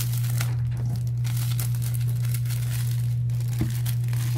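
Plastic shrink wrap crinkling and tearing as it is pulled off a box by hand, a dense irregular crackle, over a steady low hum.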